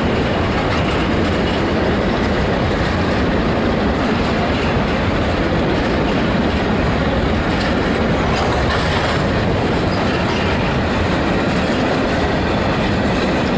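Freight train of grain hopper wagons rolling past close by: a steady, loud noise of steel wheels on the rails, with faint clicks over the rail joints.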